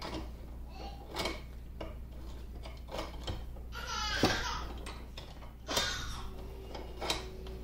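Scattered metal clicks and knocks from hand tools and parts on a 1950 LeBlond Regal lathe's cast-iron apron while it is being taken apart, with a brief squeak about four seconds in.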